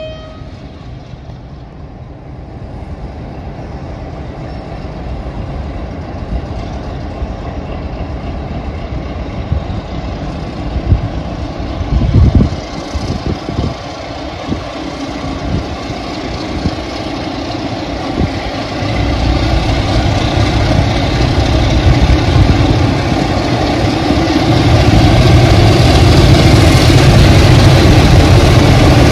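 A pair of Class 33 diesel locomotives running, their Sulzer eight-cylinder engines growing steadily louder as the train approaches. A few dull low thumps come about halfway through.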